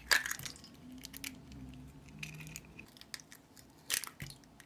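Eggs cracked on a glass mixing bowl and dropped onto the sugar: a sharp crack of shell just after the start, the loudest sound, smaller shell and handling noises, and another crack about four seconds in.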